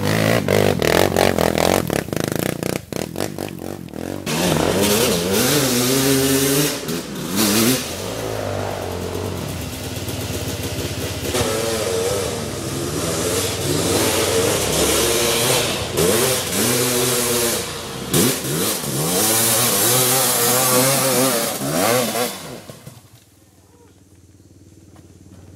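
Off-road engine revving hard on a steep dirt hill climb, its pitch rising and falling in repeated surges, with clattering knocks a few seconds in. Near the end the engine sound drops away to quiet.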